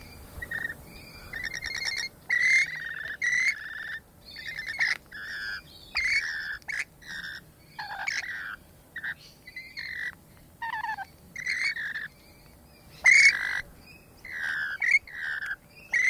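Rainbow lorikeets chattering while feeding: a run of short, loud calls one after another, with brief pauses between them.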